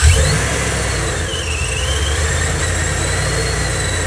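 Supercharged 6.0-litre LS V8 firing on its first start on a base tune with added fuel: it catches with a surge right at the start, then keeps running steadily with a deep rumble. A thin high whine sits over it.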